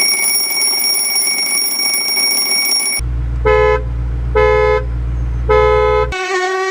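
A run of irritating sounds, one after another: first a steady high-pitched whine with hiss, then a vehicle horn tooting three times about a second apart over a low engine rumble. Near the end a mosquito's buzzing whine begins.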